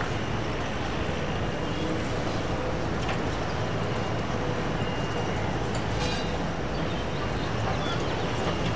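Boeing 747 freighter's four jet engines at taxi power, a steady rumble with a low hum underneath.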